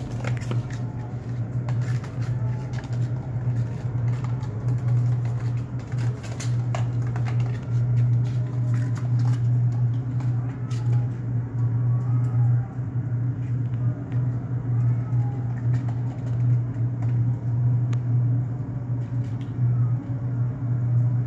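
Steady low mechanical hum, with scattered light clicks and taps mostly in the first half.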